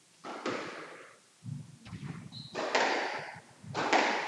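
Squash rally: the ball struck by rackets and hitting the court walls, about four echoing hits roughly a second apart, with a short squeak of a shoe on the court floor midway.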